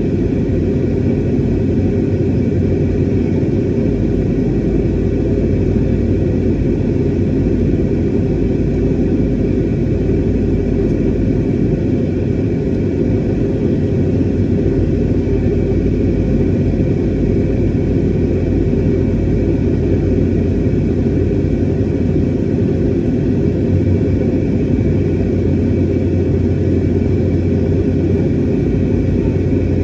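Steady low rumble of engine and airflow noise inside an airliner's passenger cabin, with a few faint steady hums above it.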